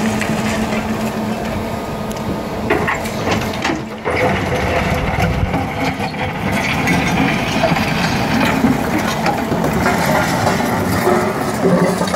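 Electric-converted Caterpillar 330 excavator at work: a steady hum from its electric motor and hydraulic pump under the scraping, grinding and cracking of rock as the bucket digs into a pile of broken stone.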